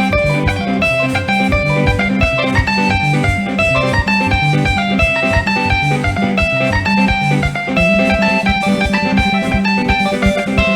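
Live band music with quick repeated guitar lines over a steady driving beat and bass, played for dancing.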